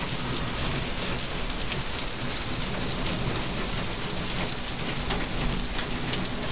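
Heavy rain pouring steadily as a dense, even hiss, with drops striking a car roof and the paved street.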